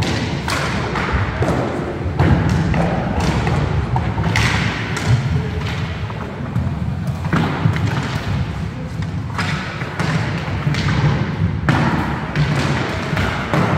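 Roller hockey play in a large sports hall: a steady low rumble of skate wheels on the wooden floor, with many sharp clacks of sticks and ball hits.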